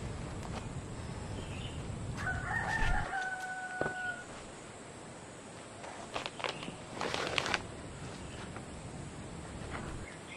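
A rooster crows once, a call of about two seconds beginning about two seconds in. About six seconds in comes a short burst of knocks and rustles.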